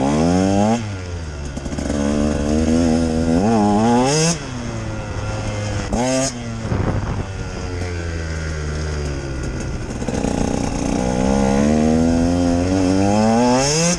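2018 Husqvarna TE 150's single-cylinder two-stroke engine being ridden hard: the revs climb in several long pulls, each cut off with a sudden drop in pitch as the throttle closes or the gear changes, with a steadier lower-revving stretch in the middle.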